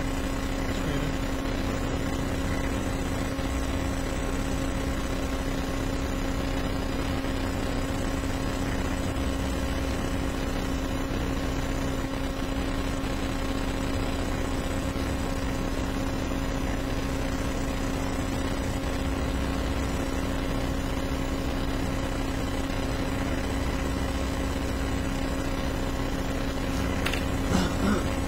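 Steady hum and hiss of the recording's background noise, with a constant low tone and fainter steady tones above it, no one speaking. A short voice-like sound comes in near the end.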